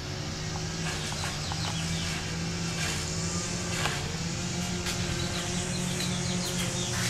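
Steady low motor drone that slowly grows louder, with faint short high chirps of birds over it.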